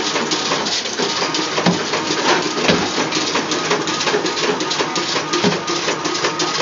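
Incense-stick making machine with its automatic bamboo-stick feeder running: a rapid, steady mechanical clatter of clicks.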